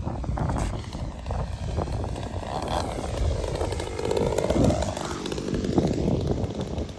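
30cc two-stroke gasoline engine of a 73-inch Extra 300 RC aerobatic plane in flight. Its pitch sweeps down and back up through the middle, with wind rumbling on the microphone.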